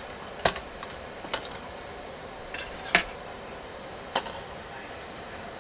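Metal slotted spatula clinking against a metal steamer pot as pan-fried oyaki are set on the steamer rack: about five sharp, separate clinks, the loudest about three seconds in.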